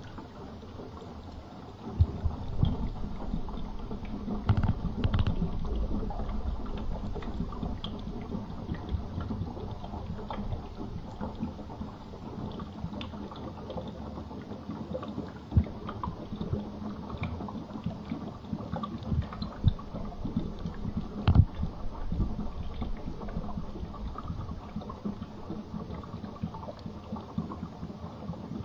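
Bathtub water heard from under the surface: a muffled low rumbling and sloshing with scattered sharp clicks and knocks, getting louder about two seconds in.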